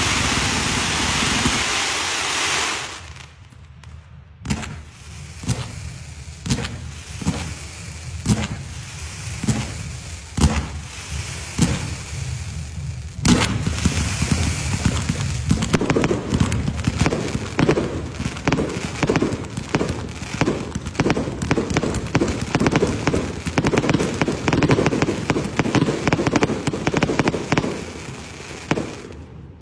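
Fireworks going off. A loud steady hiss stops about three seconds in. Single sharp cracks follow about once a second, and from about thirteen seconds in a dense, rapid string of crackling pops runs on, like a chain of firecrackers.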